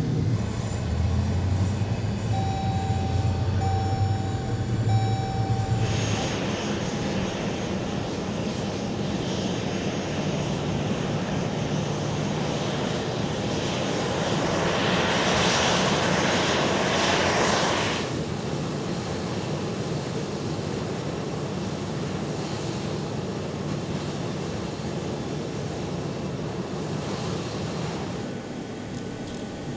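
Aircraft engines running, a steady hum and rushing noise that swells louder about halfway through and then drops off sharply. Three short beeps sound early on.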